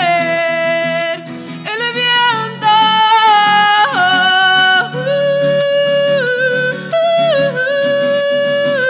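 A woman singing long held notes that step from pitch to pitch, accompanied by a strummed acoustic guitar.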